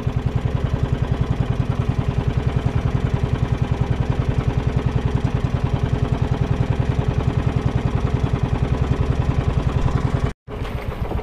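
A small engine running steadily close by, with a rapid, even chugging beat. The sound cuts out for a moment near the end and then resumes.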